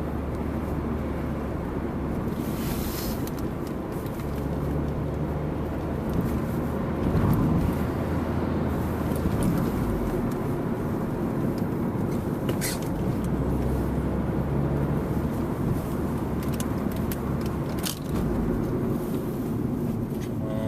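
Honda Civic driving, heard from inside the cabin: engine running with road noise, its note stepping in pitch several times as the speed changes, and a few short knocks.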